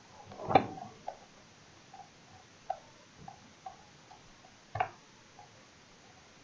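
Computer mouse and desk handling in a quiet room: a few faint clicks and two louder knocks, the loudest about half a second in and another near five seconds, while the document is being scrolled.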